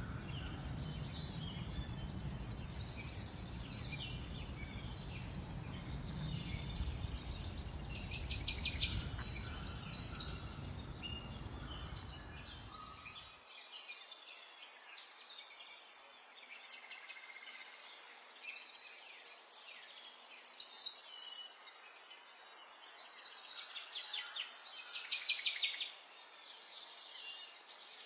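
Small songbirds chirping and singing in quick, high-pitched trills, several overlapping. A low rumble of background noise sits underneath and cuts off suddenly about halfway through.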